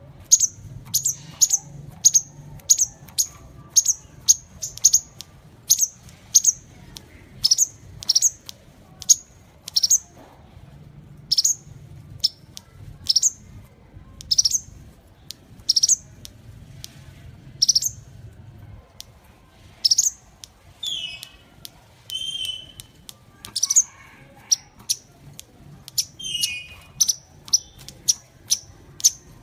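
Sunbird calling: a long run of sharp, high chirps, each dropping quickly in pitch, about one or two a second, with short lower twittering phrases mixed in during the second half.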